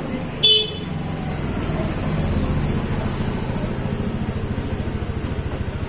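Rapid rhythmic percussive massage on the body, a fast even pulsing of about ten strokes a second, over a low steady rumble. A brief shrill beep sounds about half a second in.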